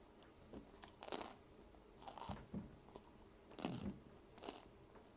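A person chewing a mouthful of crunchy Flamin' Hot Cheetos, with about five separate crunches a second or so apart.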